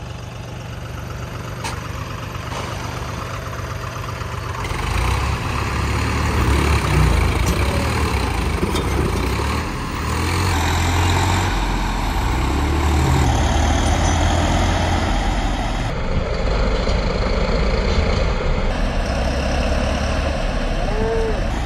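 Swaraj 855 and John Deere 5210 diesel tractor engines running hard under load as the two tractors pull against each other in a tug-of-war. A heavy, steady low engine note grows louder about five seconds in and stays loud.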